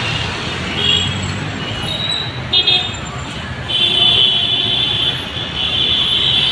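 Street traffic running past, with vehicle horns honking: a few short toots, then a long honk from about four seconds in and another near the end.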